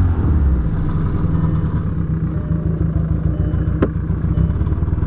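A 2003 VW Jetta's 1.8-litre turbo four-cylinder engine idles unevenly just after starting. The owner ties the uneven running to camshaft position sensor and camshaft timing codes (P0341, P0011), maybe the sensor. A single sharp click sounds about four seconds in.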